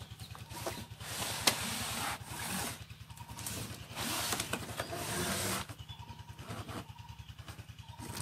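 Cardboard packaging rustling and scraping in several bursts as an RC car's box flaps are opened and the inner box is handled, with one sharp click about a second and a half in. A low, pulsing hum runs underneath.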